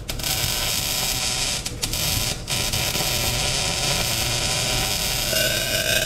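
Wire-feed welder arc crackling steadily as a bead is run on steel, with brief breaks about two seconds in where the arc stops and restarts.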